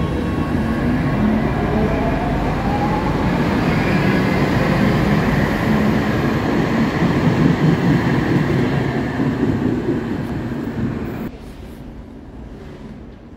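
Underground light-rail (Stadtbahn) train moving through the station: a loud rumble of wheels on rails, with a motor whine rising in pitch in the first couple of seconds. The sound drops off suddenly about eleven seconds in.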